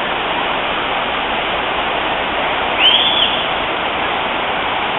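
Steady rush of the river's waterfall cascades. About three seconds in, a short high sound rises and falls over it.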